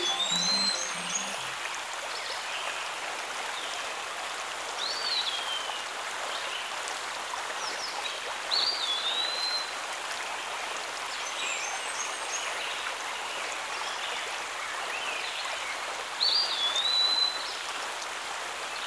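Steady rush of a shallow forest stream over rocks, with a bird repeating a short, curved whistled call about every four seconds and fainter chirps between. A brief louder noise comes near the end.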